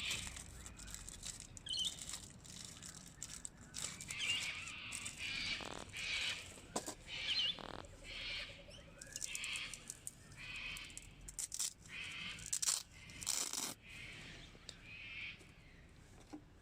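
Birds chirping in short repeated calls, with a few short sharp noises in between.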